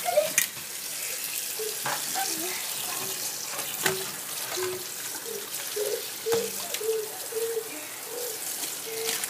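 Tap water running into a metal pot of crabs in a stainless steel sink as they are rinsed, with a few sharp knocks of the pot being handled.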